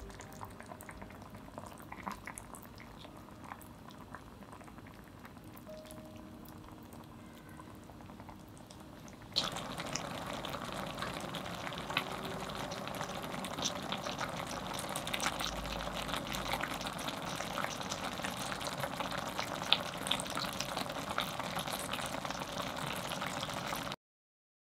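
Sukiyaki simmering in its soy-and-sugar warishita broth in a shallow pot: a soft bubbling with small ticks, then about nine seconds in a louder, steady bubbling and crackling, which cuts off suddenly near the end.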